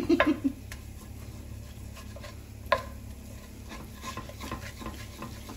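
Wooden spoon stirring and scraping chopped chicken and onion around an enamelled pan, with a few light clicks and one sharp knock about two and a half seconds in.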